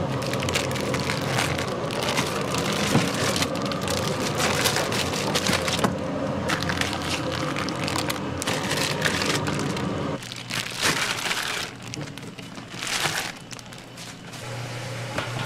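Plastic vacuum-pack bags crinkling and crackling as packs of raw beef are handled, over a steady low hum that cuts off about ten seconds in; after that only softer, scattered crinkles.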